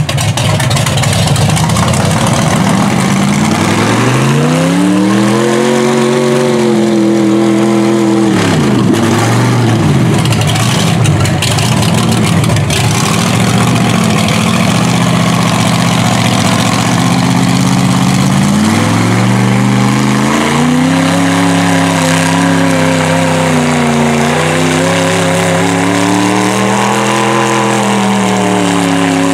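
Mega mud truck's engine revving hard under load as the truck churns through a deep mud pit on huge tractor tires and climbs out. The revs climb a few seconds in, drop off briefly, then climb again and hold high, rising and falling.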